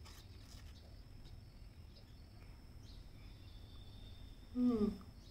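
A woman's short hummed "mmm" through a mouthful of chocolate muffin, falling in pitch, near the end. Before it, faint background with a steady high thin whine.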